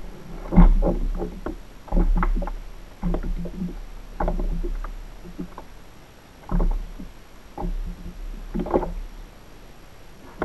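Hollow knocks and slaps against a fishing kayak's hull at irregular intervals, each with a short low ring, over a steady low rumble.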